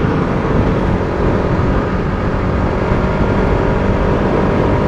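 Bajaj Pulsar RS200's single-cylinder engine running while the bike is ridden, with wind and road rumble. The pitch dips a little in the first second, then holds steady.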